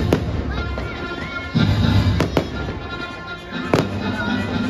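Fireworks going off over music: a sharp bang just after the start, two close together a little after two seconds, and another near four seconds, with deep booms at about one and a half seconds.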